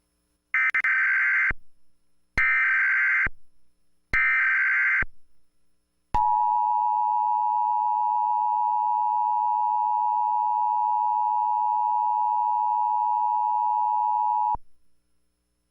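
Emergency Alert System alert tones. First come three short bursts of SAME header data, each about a second long. Then the two-tone EAS attention signal plays steadily for about eight and a half seconds and cuts off sharply.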